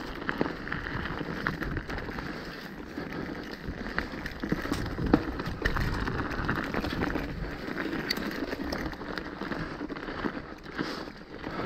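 Mountain bike rolling down a rocky, gravelly trail: tyres crunching over stones, with frequent sharp knocks and rattles from the bike over the rough ground.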